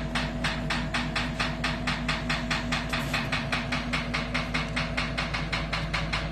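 A machine running with a steady hum and a fast, even ticking, about six or seven ticks a second.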